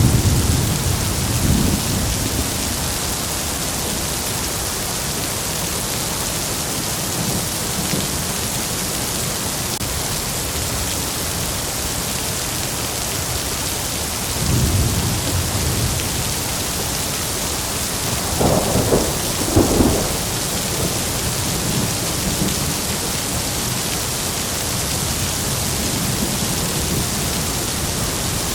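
Heavy rain falling steadily with a constant hiss. Thunder rumbles low at the start and again near the middle, then two sharper claps follow close together a few seconds later.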